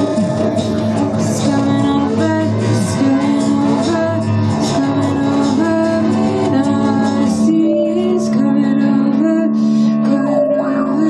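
Live band music led by an electric guitar, with held notes moving in a stepping melody.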